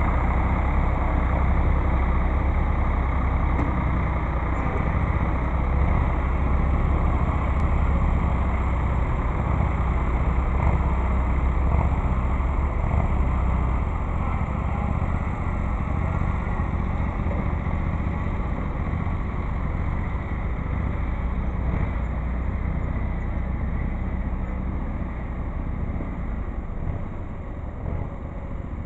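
Ford 3000 farm tractor engine running steadily, with a heavy low rumble that is strongest for about the first half and then grows gradually quieter as the tractor moves away.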